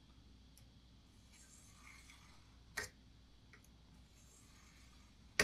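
Faint scratching of a scribe point drawn along a straight edge across dye-coated sheet metal, marking a cut line. A light click comes about halfway through and a sharper click near the end.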